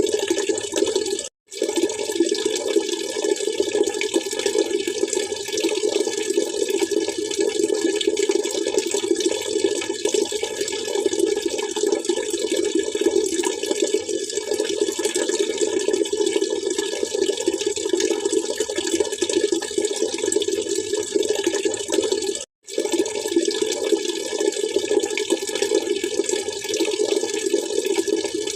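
Steady splashing, trickling water running continuously, broken by two very short gaps of silence, about a second and a half in and again near the end.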